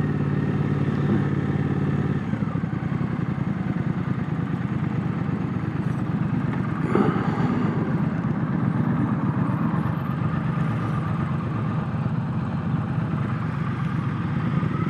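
Triumph parallel-twin motorcycle engine running at low speed while being parked. It holds a steady note for about two seconds, then runs rougher and choppier, with a brief sharper sound about seven seconds in.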